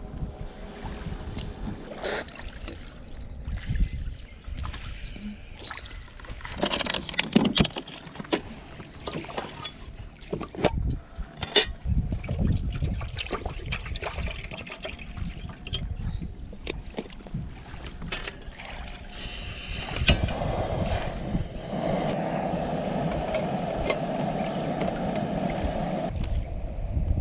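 Scattered knocks and clatter of gear being handled in a small fishing boat, then a steady rushing noise for about six seconds near the end.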